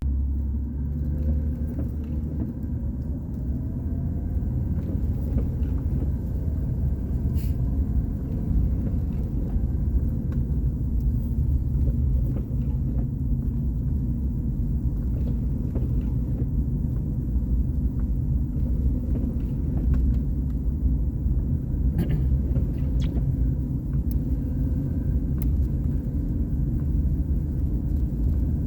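Car driving, heard from inside: a steady low rumble of engine and road noise, with a few faint ticks.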